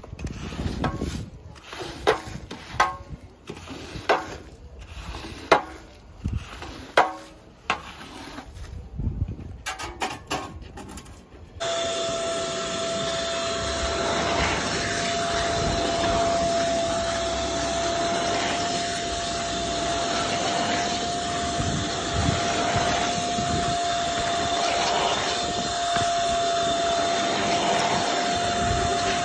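A metal floor squeegee scraped in separate strokes across a soaked shag rug, pushing off foamy water. About twelve seconds in, a wet vacuum suddenly takes over, running with a steady whine as its extraction wand sucks water out of the rug pile.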